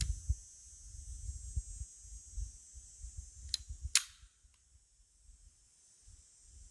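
Two pistol shots about half a second apart, the second the louder, from a Makarov 9x18 firing steel-cased full metal jacket rounds. A faint click comes near the start.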